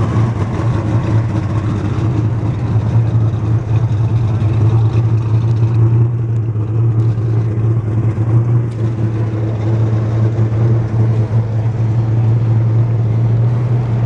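An engine running steadily at one constant low pitch, with no revving, under a general outdoor haze of noise.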